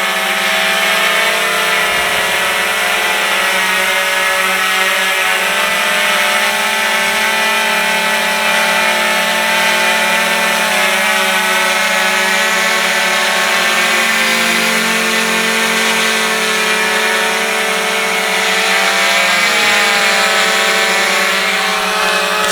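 XK X380 quadcopter hovering: its four motors and propellers give a loud, steady multi-pitched whine, the pitches wavering slightly as the motors hold the hover.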